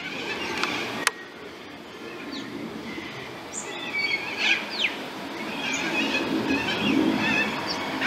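Outdoor birdsong: scattered short chirps and down-slurred whistles from small birds, busier in the second half, over a low hum of road traffic that grows louder. A single sharp click about a second in.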